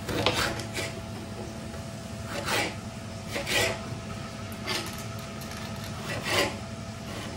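Kitchen knife scraping and cutting on a plastic cutting board in several short strokes, roughly a second apart, as chopped hot pepper and seeds are cut and gathered.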